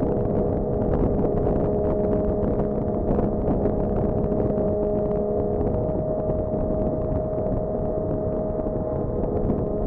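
Turbocharged 2JZ-GTE straight-six in a Lexus SC300 cruising steadily at highway speed, heard inside the cabin over tyre and road rumble, with a steady droning hum. The boost display reads vacuum, so the engine is on light throttle and off boost.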